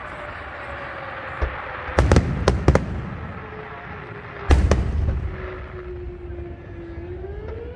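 Aerial fireworks shells bursting overhead. A quick cluster of three or four sharp bangs comes about two seconds in, then one big boom about halfway, each report trailing off in a low rumble.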